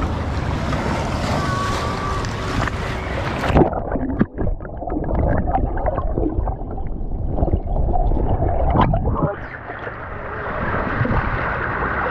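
Shallow sea water sloshing and washing around the camera. About three and a half seconds in, the camera goes under the surface and the sound turns muffled, with bubbling, crackles and knocks from the water. Near the end it opens up a little again.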